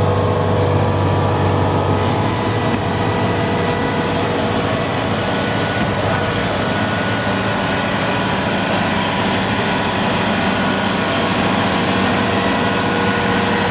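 Kubota DC70 combine harvester's diesel engine running steadily under load as the machine climbs, with a steady mechanical hum and no clear change in engine speed.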